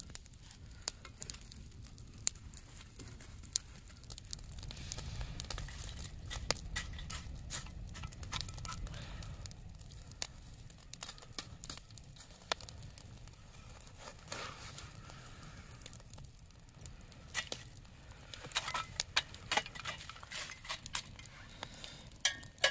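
Glowing campfire coals being scooped and dropped into a metal barbecue pan while the fire crackles: sharp scattered crackles and clinks throughout, over a low rumble from about four to ten seconds in.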